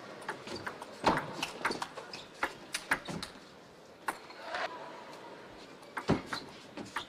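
Table tennis ball knocking sharply and irregularly on bats and table, several knocks in the first three seconds and more near the end, over a low steady hall background.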